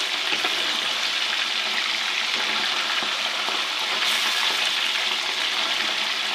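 Fish pieces shallow-frying in hot ghee in a kadhai, sizzling with a steady, even hiss. The pieces are only part-fried, a few minutes in, before they go into the curry.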